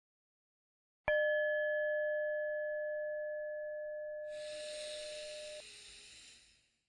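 A single chime struck about a second in, ringing with a clear tone that fades slowly: the closing chime that marks the end of the 20-minute breathing timer. About three seconds later a breath sounds over its fading ring.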